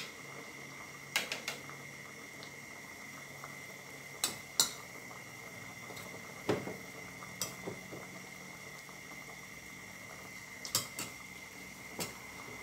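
Aluminium pot of sour curry simmering, with scattered sharp clinks and knocks of a metal utensil against the pot, the loudest about four and a half seconds in. A steady faint high tone sits underneath.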